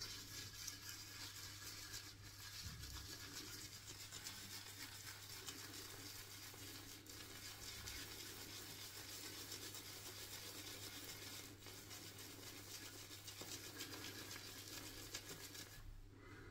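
Synthetic shaving brush swirled over shaving soap in its tub, loading the brush: a faint, steady bristly scratching that stops just before the end.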